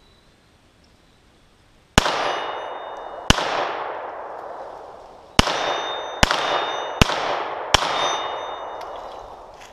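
Six 9mm shots from a Glock 43 subcompact pistol, each followed by a long fading echo. The first two come about a second and a half apart, then after a pause four more follow quickly, under a second apart.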